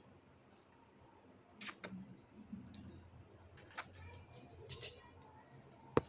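Quiet scattered clicks and ticks of an Alexandrine parakeet's beak nibbling food held out in fingers, with a few sharper clicks near two seconds in and again around four to five seconds in.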